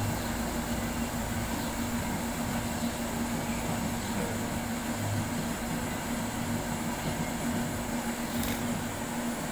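Motor-driven flour mill (atta chakki) running with a steady drone and a constant hum.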